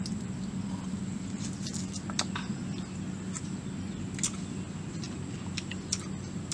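Scattered small clicks and smacks of people eating with their fingers, gnawing meat off a bone and sipping, over a steady low hum and a steady high-pitched whine.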